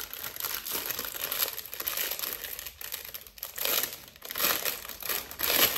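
Packaging crinkling and rustling as it is handled and unwrapped during an unboxing, in a few louder surges toward the end.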